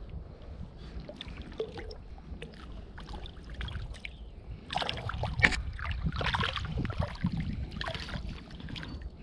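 Water splashing and sloshing in irregular bursts, louder from about halfway through, over a steady low rumble.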